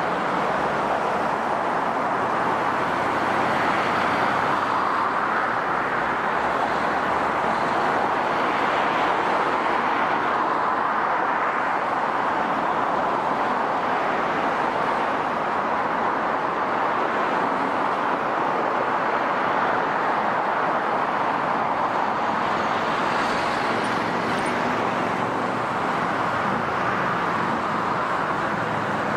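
Jet airliner engines: a steady, even rush of noise. It comes from a jet climbing away after takeoff and a Japan Airlines Boeing 777-200ER moving along the runway.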